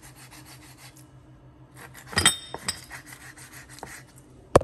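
Knife cutting fish fillets into chunks on a cutting board: soft scraping strokes, a clink of metal about two seconds in, and a sharp knock near the end.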